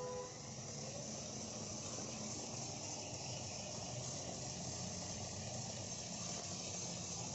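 12-volt geared DC motor driving a rubber conveyor belt over wooden rollers, running steadily at a raised speed with an even, unchanging whir.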